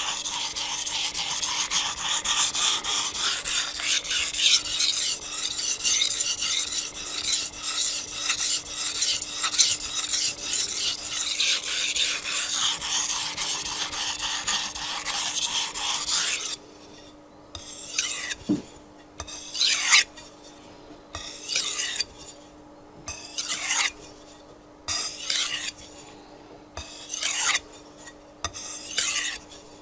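Japanese chef's knife blade scraping on a wet 800-grit whetstone. For about the first half the strokes are rapid and run together into a continuous rasp. After that they slow to single strokes about one every second and a half, as the edge moves from setting to honing and refining.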